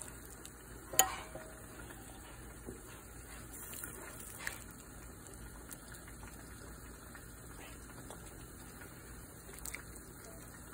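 Light clicks and clinks of dishware against a ceramic soup bowl over a faint steady hiss, the sharpest click about a second in and a few softer ones after.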